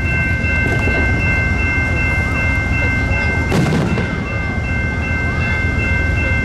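Amtrak Superliner passenger cars rolling steadily past through a grade crossing, with a low rumble and the crossing bell ringing as steady high tones. A single firework boom goes off about three and a half seconds in.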